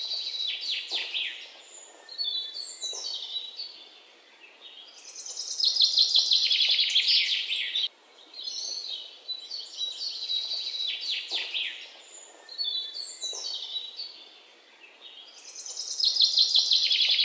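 Birdsong of high chirps and fast trills, laid on as a loop: the same ten-second stretch plays twice, each time building to a loud, dense trill, about five seconds in and again near the end.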